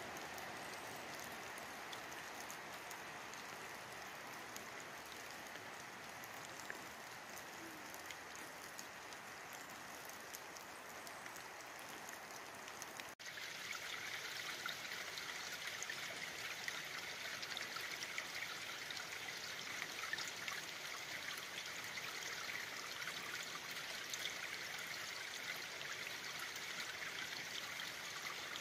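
Water dripping and trickling down a moss-covered timber crib wall: a steady patter of many small drops, a little louder and more ticking after a cut about halfway through.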